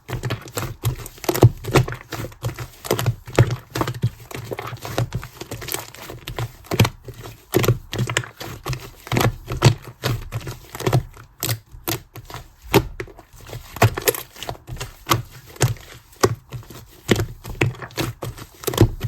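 Clear green slime being squeezed and pressed by hand, giving a continuous run of irregular clicks and small pops, several a second.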